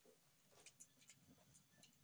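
Near silence: room tone with a few faint scattered clicks.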